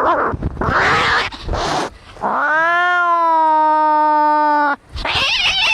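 Angry cats fighting. Harsh, noisy hissing comes first, then a single long yowl about two seconds in that rises and then holds steady for about two and a half seconds, cut off by more harsh hissing.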